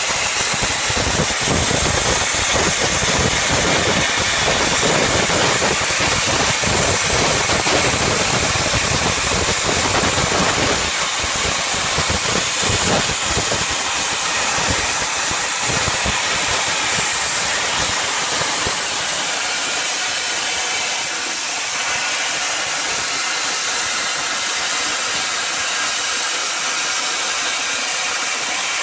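Plasma torch of a portable CNC cutter cutting steel plate: a loud, steady hiss of the arc and its air jet. The low rumble under the hiss thins out about eleven seconds in and again a little later.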